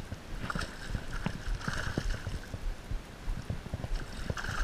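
Irregular water splashing and sloshing as a hooked fish thrashes at the surface close by, with wind rumbling on the microphone.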